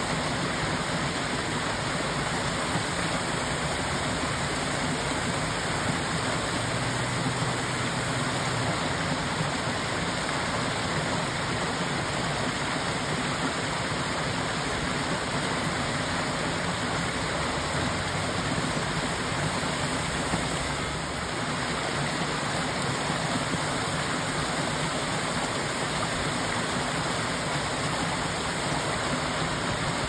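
Small waterfall: creek water spilling over a mossy rock ledge and splashing into the shallow pool below, a continuous, even rush of falling water.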